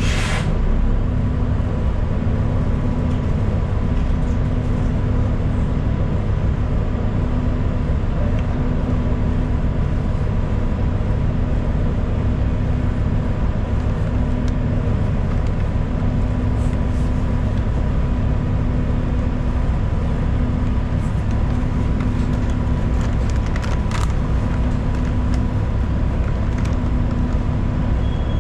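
Inside a city transit bus under way: steady engine and road rumble, with a steady whine and a low hum that cuts in and out every second or two. A short hiss sounds right at the start.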